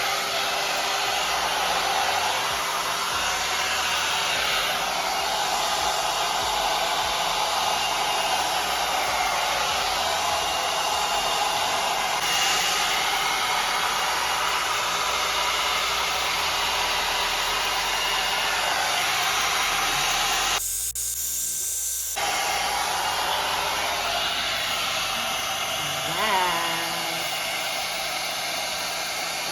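MiroPure 4-in-1 hot air brush (hair dryer brush) blowing steadily. About two-thirds of the way through, the lower part of the sound drops out for about a second and a half, then the blowing resumes.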